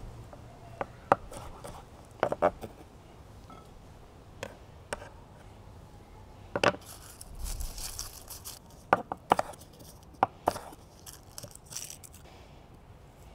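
Kitchen knife chopping vegetables on a wooden cutting board: irregular, sharp knocks of the blade hitting the board. About seven seconds in there is a longer scrape as the blade pushes cut pieces off the board.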